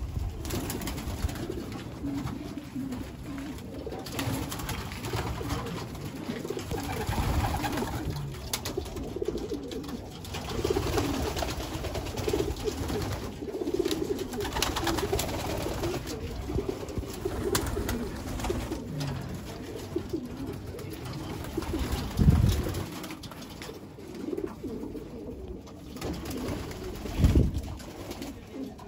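A loft full of racing pigeons cooing together in a steady, overlapping murmur. Two short, louder thumps stand out in the second half.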